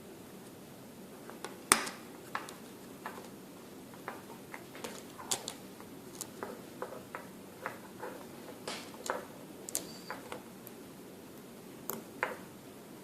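Irregular small clicks and taps of hand tools on a smartphone's small internal plastic and metal parts during disassembly, with one sharper click near the start.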